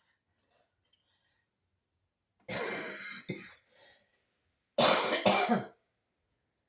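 A person coughing twice, about two seconds apart, the second cough louder.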